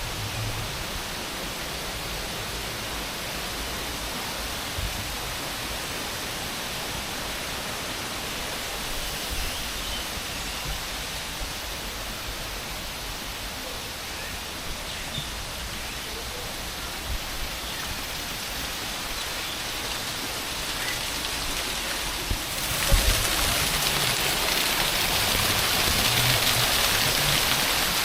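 Steady rush of running water, like a stream or small waterfall. About three-quarters of the way in there is a short knock, and the rush then grows louder and brighter.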